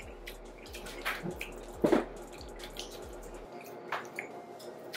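A few short, quiet sounds of someone eating ramen noodles, the loudest about two seconds in.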